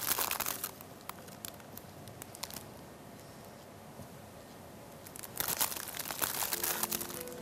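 A thin plastic bag crinkling and dry toasted bread crunching as it is crushed by hand inside the bag. There is a spell of crackling at the start, scattered small crackles in the middle, and a denser spell from about five and a half seconds in.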